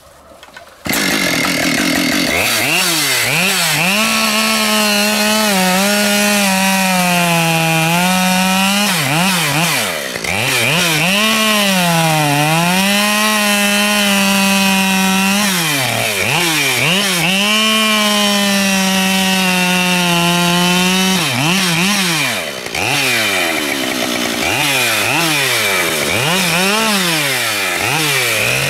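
Husqvarna 572 XP two-stroke chainsaw starts about a second in, then cuts through dry black locust (acacia) logs. The engine runs at high speed, its pitch sagging and recovering over and over as the chain bites into the hard wood, with a few brief drops in speed between cuts.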